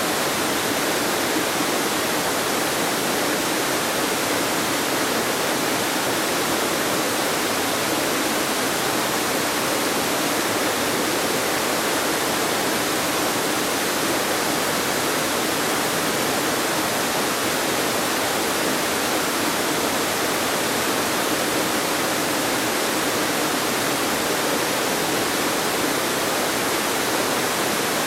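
Glade Creek's waterfall pouring over rock ledges: a steady, unbroken rush of falling water.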